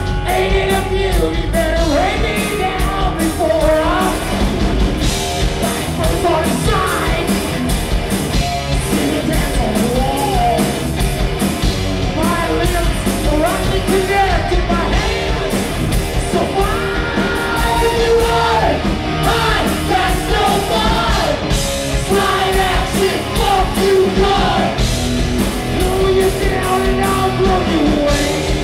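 Live rock band playing at full volume: a lead singer singing over electric guitar, bass and drums.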